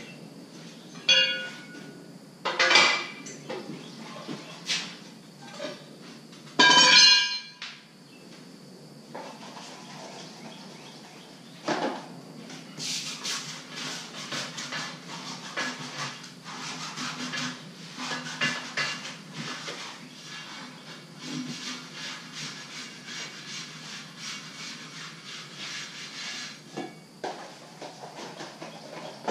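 Metal tire-changing tools clanking against a wheel rim, with several sharp ringing knocks in the first eight seconds. From about twelve seconds in comes a long stretch of rapid scraping and rattling as the tire is worked off the rim by hand.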